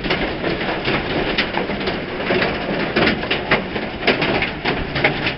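Dense, irregular patter of small crackling clicks and impacts, steady throughout.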